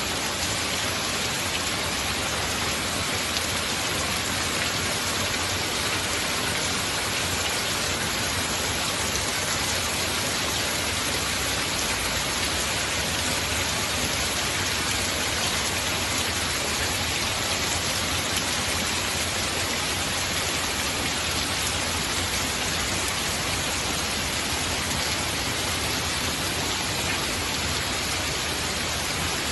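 Steady heavy rain falling and pattering on surfaces, an even, unbroken hiss with no thunder.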